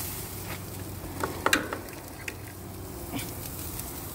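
Food sizzling on a gas grill, with several sharp clinks of metal tongs against the grill grates and a metal grill basket. The loudest clinks come about one and a half seconds in.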